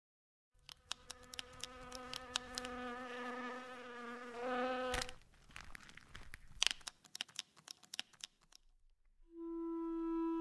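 A buzz like a flying insect's, wavering and growing louder for about four seconds, then stopping with a sharp smack about five seconds in. Scattered clicks and taps follow, and near the end a held low note of music starts.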